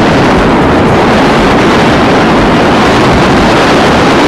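Hurricane wind blowing hard and buffeting the microphone: a loud, steady rush of noise with no letup.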